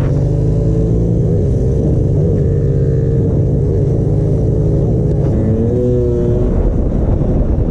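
Motorbike and scooter engines running under load while riding up a steep incline. The engine note wavers up and down with the throttle over a steady low drone.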